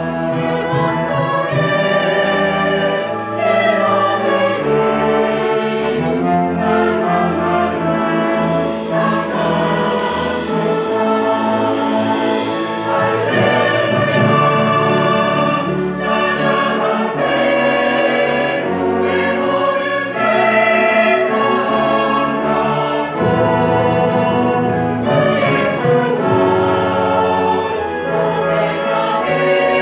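Mixed choir singing a hymn in Korean, accompanied by a church orchestra of flutes, clarinets, saxophones, brass and cellos, with occasional percussion strokes.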